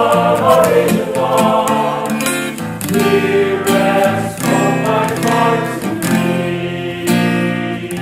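A song: voices singing a slow melody over plucked acoustic guitar accompaniment.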